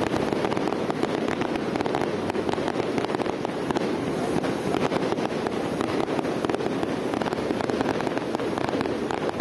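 Fireworks display: a steady barrage of many shells bursting together, heard as a dense run of rapid pops with no single big bang standing out.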